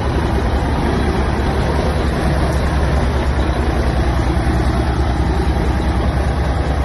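Tractor-trailer's heavy diesel engine running steadily without revving as the truck creeps forward, a deep, even rumble.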